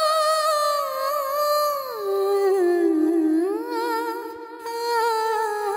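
Music: a voice humming a slow, ornamented melody with long held notes, gliding down to a lower note about two seconds in and back up, in the hummed opening of a Kannada romantic song.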